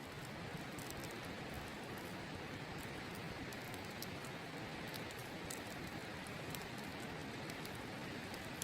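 Wood campfire crackling, with frequent small sharp pops and snaps, over the steady rush of a river.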